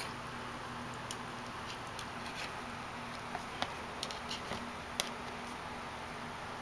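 Kittens' paws and claws tapping and scratching at the edge of a box: a few faint, scattered clicks and scrapes over a steady room hiss.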